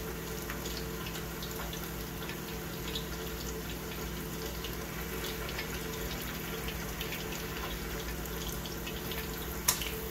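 Battered squid deep-frying in a small saucepan of hot oil: a steady sizzle dotted with small pops and crackles. Near the end, a single sharp click as chopsticks knock against the pan.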